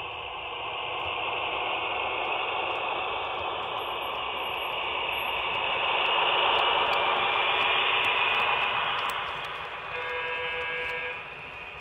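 Model freight train led by Soo Line F-unit diesel models rolling past on the track, a steady running noise of wheels and motor that grows loudest about six to nine seconds in. A horn sounds briefly about ten seconds in.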